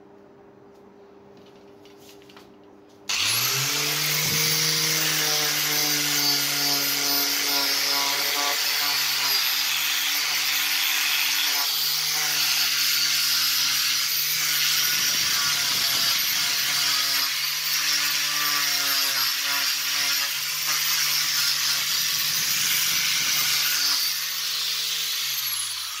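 Electric rotary sander with a round pad starts about three seconds in, its motor rising quickly to speed, then runs steadily with a rough rubbing noise as the pad works over a wooden knife handle. Near the end the motor is switched off and its pitch falls as it winds down.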